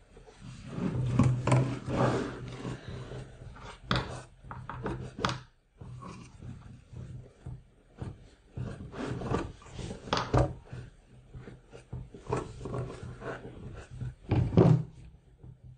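Canvas rustling and scraping as hands fold and pull it tight around the corner of a wooden stretcher frame, with a few sharp knocks.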